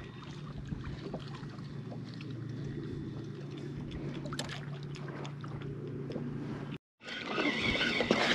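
A boat's motor humming at a low, steady pitch under a haze of noise, with a few light clicks. About seven seconds in it cuts off abruptly to a louder rush of noise.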